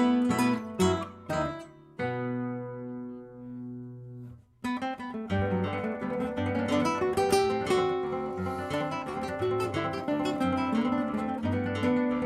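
Background music played on acoustic guitar, with picked and strummed notes. About two seconds in, a chord is left ringing and fades away; after a brief pause the playing picks up again and runs on steadily.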